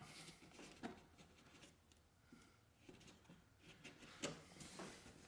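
Faint handling sounds of a spruce root being threaded back through a hole in a birchbark canoe's gunwale: a few soft scrapes and light clicks, the clearest about a second in and again a little after four seconds.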